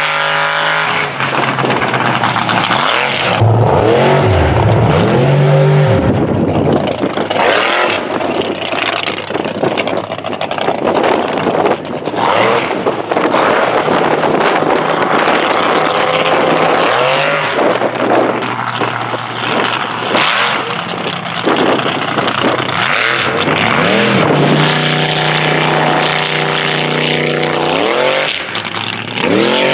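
Mega truck engines revving hard and easing off, over and over. The pitch rises and falls with the throttle.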